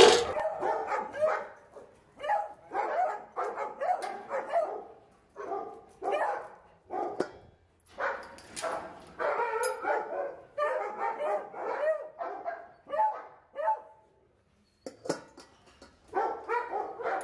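Kennel dogs barking repeatedly in short volleys, two or three barks a second with brief pauses: the dogs clamouring for their food at feeding time. A single sharp click comes near the end.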